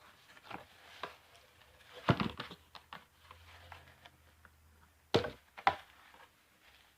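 Scissors snipping and hard plastic toy packaging knocking as pieces of a Barbie play set are cut free: a few sharp clicks and knocks, the loudest about two seconds in and two more close together about five seconds in.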